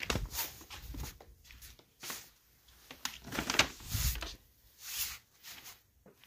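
Footsteps in sandals on a concrete porch and the crinkle and soft thud of a paper takeout bag being set down on a doormat, the loudest handling about three and a half seconds in, then steps walking away.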